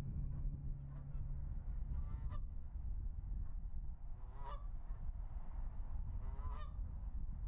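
Canada goose honking three times, about two seconds apart, over a steady low rumble.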